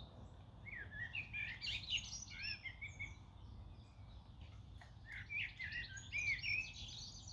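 A songbird singing two quick runs of varied, curving high notes, about a second in and again around five seconds, over a steady low background rumble.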